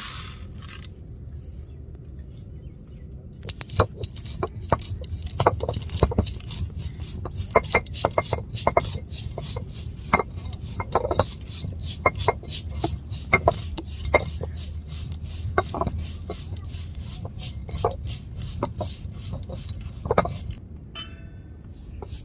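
Whole peppercorns, cumin and fennel being crushed on an ammi, a flat grinding stone, with its stone roller: rapid, irregular cracks and knocks that start about three seconds in.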